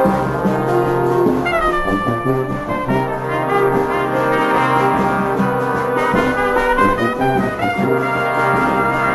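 Live festive brass band playing: trumpets, trombones and saxophones over a steady sousaphone bass. A high note slides down about a second and a half in.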